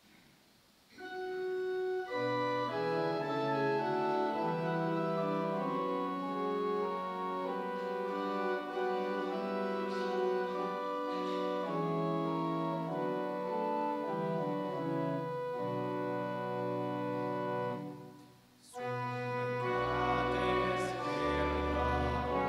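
Church organ playing the introduction to a hymn in sustained, changing chords. It breaks off briefly about 18 seconds in, then comes back in with deep pedal bass notes as the hymn proper begins.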